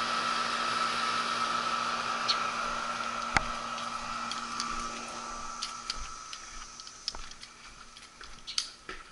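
Steady hum of running air-conditioning equipment with a steady high tone, growing gradually fainter, with scattered light clicks and taps.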